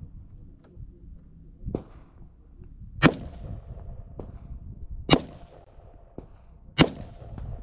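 Three rifle shots from an AR-style rifle, fired about two seconds apart, each a sharp crack with a short echo. Fainter pops from elsewhere on the range fall between them.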